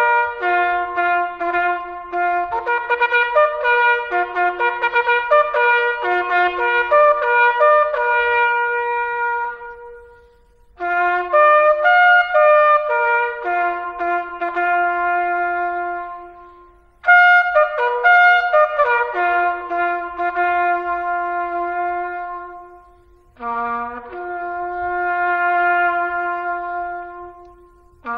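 Solo cornet playing a slow melody, with quick runs of notes in the first few seconds and longer held notes after. It plays in phrases broken by short breaths about ten, seventeen and twenty-three seconds in.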